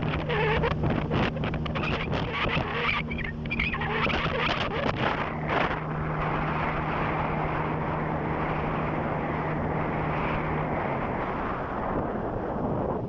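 A small boat's motor running steadily under wind and water noise, with gusts buffeting the microphone in the first half. The engine note drops about eleven seconds in, as if throttled back.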